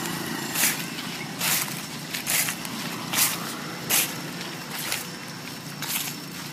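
Footsteps crunching through dry fallen leaves, a crisp rustle about once a second, over a low steady hum.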